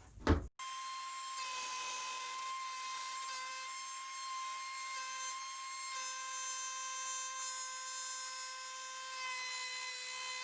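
Wood router running steadily with a high, even whine, cutting a shallow recess into the edge of a wooden door to inset a mortise lock's faceplate.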